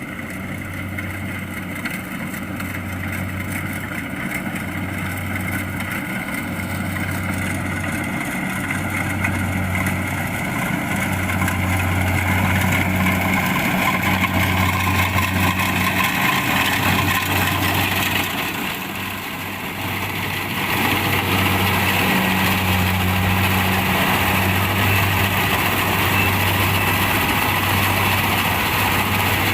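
Kubota DC-70 Plus rice combine harvester running as it harvests, a steady diesel engine and machinery drone that grows louder over the first dozen seconds, dips briefly about twenty seconds in, then holds steady.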